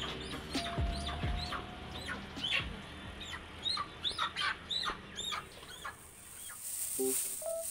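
Live chickens clucking, many short high calls in quick succession over the first five seconds or so.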